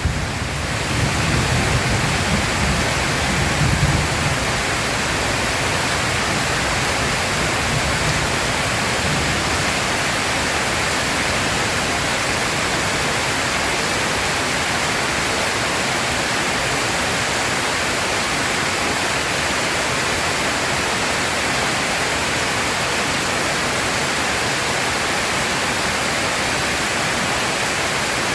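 Heavy rain pouring down in a steady, even hiss. A low thunder rumble dies away over the first several seconds.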